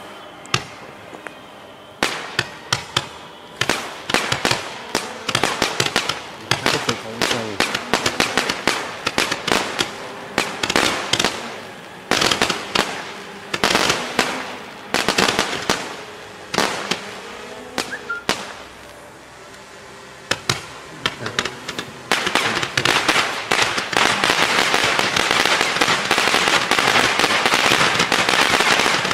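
A 169-shot, 200-gram consumer fireworks cake (Sunwing 'Till the Cows Come Home') firing: a quick, uneven series of sharp pops from the shots launching and breaking. About three quarters of the way through it turns into a dense, continuous crackle.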